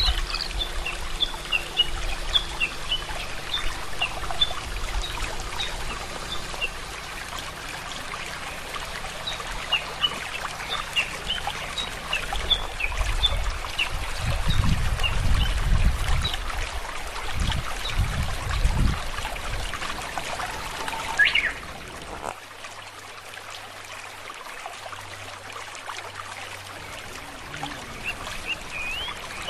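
Outdoor ambience of small birds chirping in short high calls over a steady rushing hiss, with low rumbles in the middle. About two-thirds of the way through the sound cuts abruptly to a quieter bed with a low steady hum.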